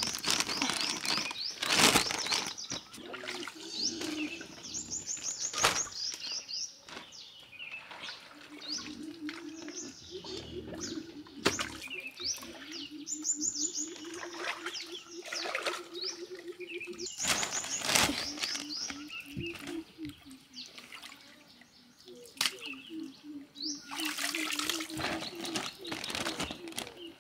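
Small birds chirping in quick repeated trills, with bursts of water splashing a few times as fish are handled in a basin of water.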